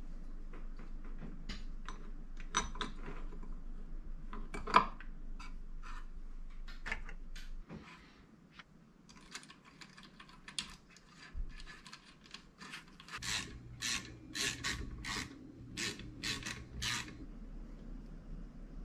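Metal hand tools clicking and knocking on a dirt-bike engine's aluminium crankcases as they are put back together, with one sharp knock about five seconds in and a quick run of clicks near the end.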